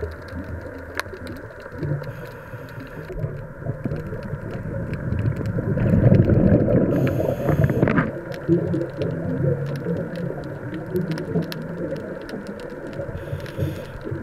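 Scuba regulator heard underwater: exhaled bubbles rush past in a long swell around the middle, then weaker bubbling, over a background of scattered sharp clicks.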